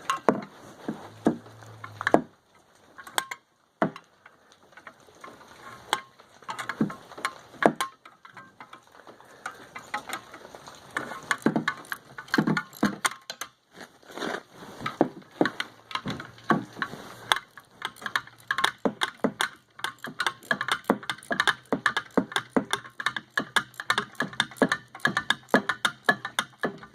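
Metal clicks and clinks of a wrench tightening the bolts that hold a replacement paddle on a salt spreader's auger shaft. The clicks are scattered at first and turn into a fast, steady run over the last ten seconds.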